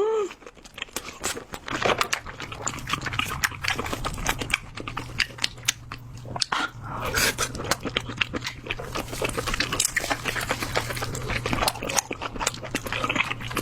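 Close-up mukbang eating sounds: wet chewing and lip smacking while eating lobster and seafood, with a steady stream of small clicks and crackles. A low steady hum runs underneath.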